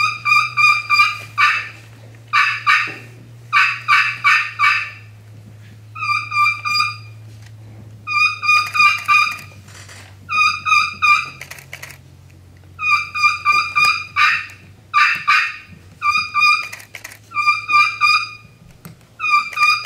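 Friction turkey call, a striker worked on the call surface, imitating a young wild turkey's kee-kee run. It plays short runs of three to five clear, high notes, one run every second or two.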